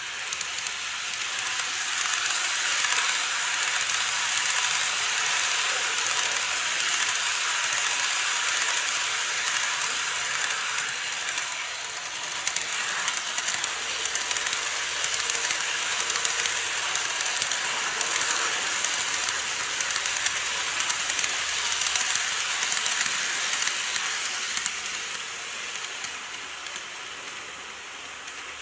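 Model 189-series train running on plastic viaduct track: a steady rushing hiss of wheels on rail and motor that builds over the first couple of seconds as it comes round the curve, stays level as it passes close, and fades in the last few seconds as it draws away.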